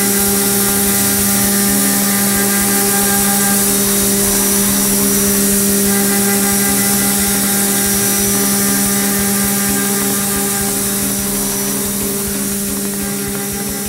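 Haas VM-3 CNC mill's spindle and end mill cutting aluminium billet, a steady drone held on a constant pitch. Flood coolant hisses over the cut, and the sound eases slightly near the end.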